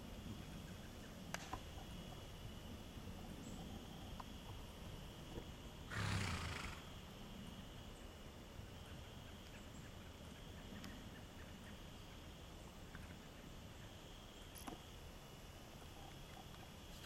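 A horse snorting: one short, breathy blow about six seconds in. Around it is a faint, mostly quiet background with a thin steady high tone and a few light ticks.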